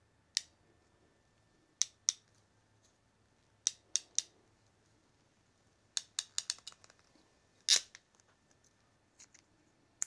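Hand wire stripper-crimper snipping and clicking on thin automotive wire: a dozen or so sharp clicks in small groups, a quick run of them about six seconds in, and the loudest, longer snap near eight seconds in.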